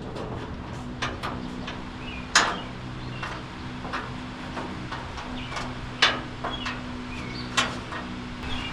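Light metal clicks and clinks of bolts, hardware and hand tools against a car's body and frame while body mounting blocks are being fitted, with three sharper knocks, over a steady low hum.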